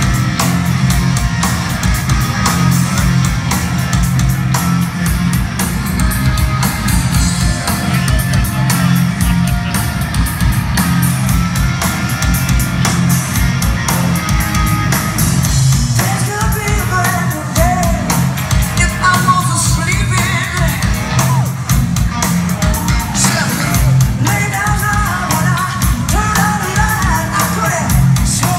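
Loud rock music with a steady, pulsing beat, played over a hall's sound system; a singing voice comes in about halfway.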